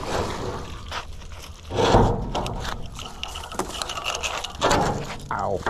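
Wet magnet-fishing rope being hauled in hand over hand across a wooden bridge, with water dripping and rope scraping. There is a louder scraping burst about two seconds in and another near the end.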